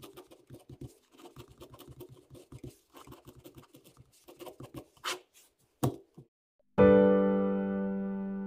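Ballpoint pen scratching out letters on graph paper, with a couple of sharper taps toward the middle. Near the end a piano chord starts suddenly, loud, and slowly fades.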